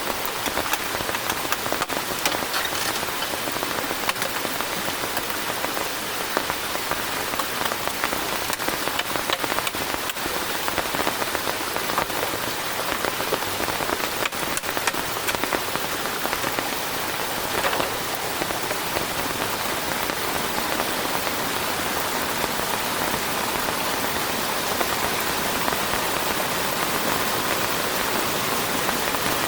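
Heavy rain falling steadily, with many separate drops hitting close by.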